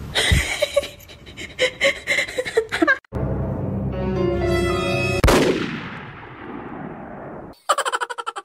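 Gunshot sound effect: one sharp bang about five seconds in with a long fading tail, dubbed as a mock shot from a hand shaped like a gun. Music comes before it, and a quick run of rapid pulses comes near the end.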